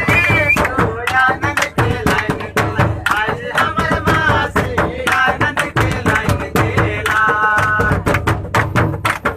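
Group singing a devotional bhajan over dense drumming on a large nagara kettle drum struck with sticks and rope-laced barrel drums.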